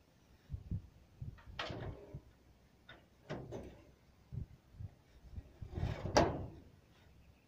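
Scattered dull knocks and short brushing scrapes on concrete roof tiles, from volcanic ash being swept and a person shifting on the tiles. The loudest scrape comes about six seconds in.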